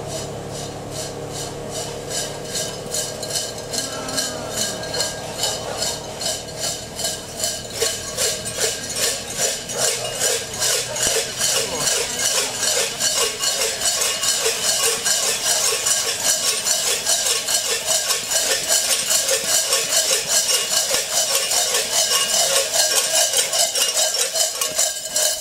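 Large bells worn by masked devils in a Saint Nicholas procession, clanging in a steady rhythm with their walking steps and growing louder as the group comes closer.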